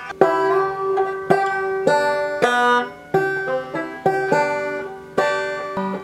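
A banjo being picked by a beginner working through a simple tune slowly. Bright plucked notes and chords start sharply about once or twice a second, each ringing and fading before the next.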